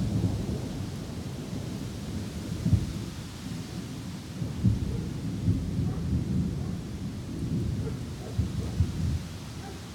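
Thunderstorm noise: an uneven low rumble with several sharper gusts through it, from wind and distant thunder around a supercell.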